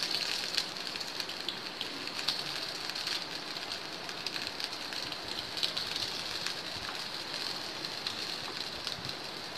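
Potato patties shallow-frying in oil in a nonstick pan: a steady sizzle full of small crackling pops. Occasional louder clicks come as the spatula touches the pan while the patties are turned.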